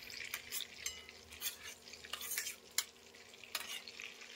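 Bay leaves sizzling in hot oil and melted butter in a stainless steel pan, with irregular small crackles and pops and a light scrape of a metal spatula.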